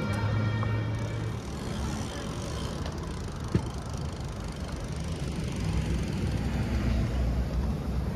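City street traffic noise, a steady hum of vehicles, with a steady multi-tone sound that fades out within the first second or two. A single sharp click comes about three and a half seconds in.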